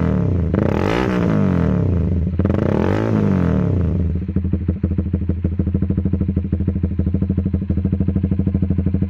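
Honda CBR150 single-cylinder engine running through an aftermarket Proliner exhaust: two quick throttle blips, about a second and three seconds in, then settling to a steady idle with an even exhaust pulse.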